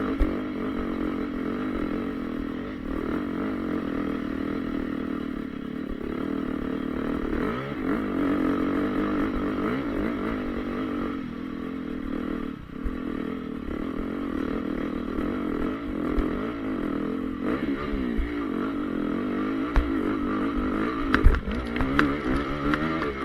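2014 Honda CRF450R motocross bike's single-cylinder four-stroke engine running on the track, its pitch rising and falling as the rider works the throttle. A few sharp knocks come near the end.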